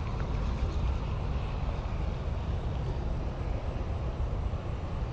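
Wind buffeting an action camera's microphone: a steady low rumble.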